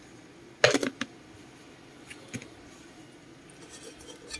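Cookware being handled on a stove: a short clatter of knocks and clicks about half a second to a second in, then one lighter knock a little after two seconds.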